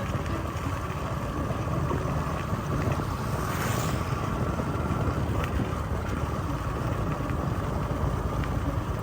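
A vehicle running steadily on the move, with a constant low rumble and a steady higher hum. A brief hiss rises over it about three and a half seconds in.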